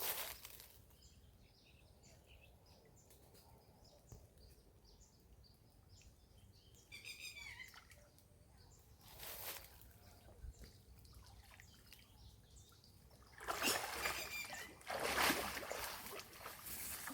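Water splashing and dripping as a fishing net is handled in the water: short bursts a little after nine seconds, then a longer stretch of splashing near the end. Faint bird chirps sound in the quieter stretch between.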